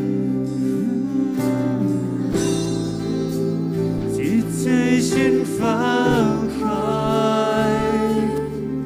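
Worship band music: sustained keyboard and band chords, with a voice singing the melody over them from about halfway through.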